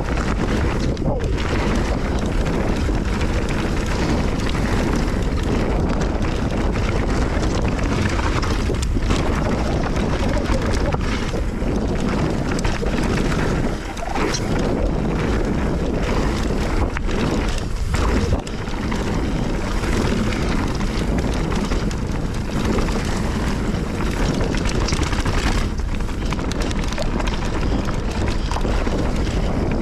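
Wind buffeting the microphone of a camera on a Nukeproof Giga mountain bike running downhill on a dirt trail, mixed with tyre roar and the rattle of the bike. The noise is loud and steady, with two brief lulls in the middle.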